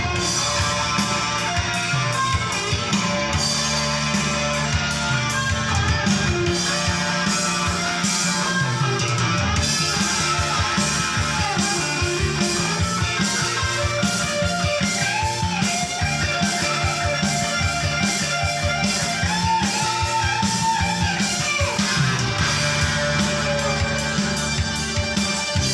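Instrumental break of a 1980s Cantonese rock song: an electric guitar lead with bent notes over a bass line and band accompaniment, played from a vinyl record.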